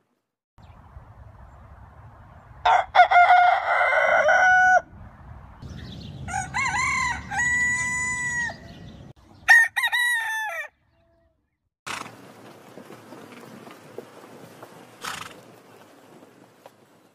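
A rooster crows about three times. Each crow rises through short notes into a long held note. After that there is quieter outdoor noise with a couple of sharp knocks.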